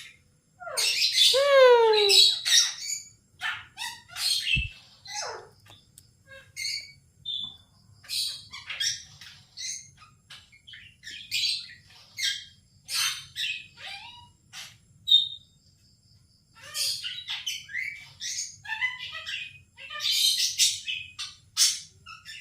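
Pet parrot chirping and squawking in a string of short, high calls, with a long falling whistled call about a second in and a short pause about two-thirds of the way through.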